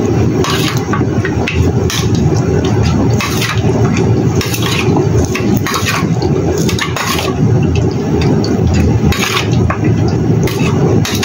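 A metal spoon stirring marinated pork ribs in a stainless steel bowl: steady wet stirring, with frequent clinks and scrapes of the spoon against the bowl.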